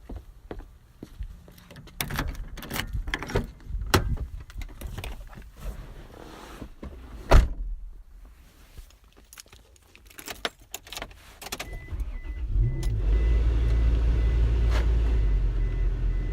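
A run of clicks, knocks and jangling keys, with one loud slam about seven seconds in. About twelve seconds in a car engine starts and then runs steadily, a loud low rumble.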